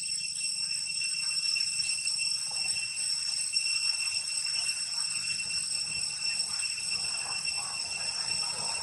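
Steady high-pitched drone of forest insects, holding one unchanging note.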